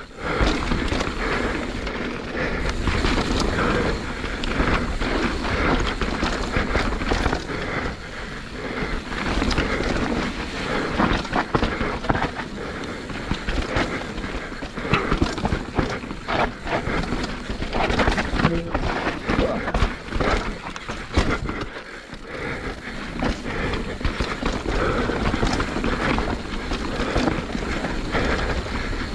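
Mountain bike riding down a rough dirt trail: steady rumble of tyres and wind buffeting the microphone, with frequent clattering knocks as the bike goes over bumps.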